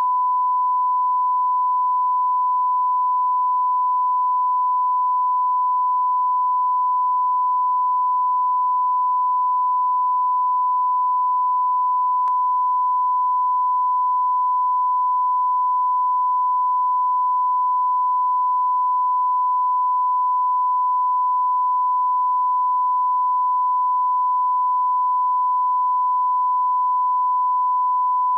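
Broadcast line-up test tone accompanying TV colour bars: one steady, unbroken pure pitch at constant level, with a faint tick about twelve seconds in.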